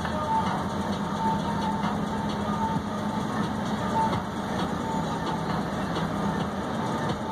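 An engine running steadily, a low hum with some rumble, and a short high beep repeating roughly once a second.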